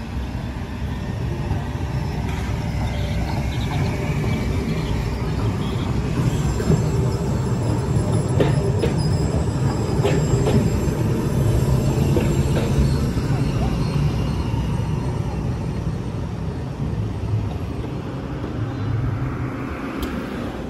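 Bern city tram passing close by, its steel wheels rumbling on the rails. The sound swells as it goes by, with a few sharp clicks over the rail joints and a faint high whine, over steady street traffic.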